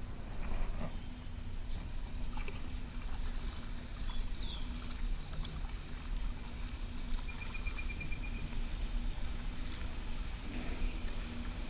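Kayak paddling on calm lake water: paddle strokes dipping and dripping over a steady low rumble. There are two faint high calls, one short chirp about four seconds in and a quick trill near the middle.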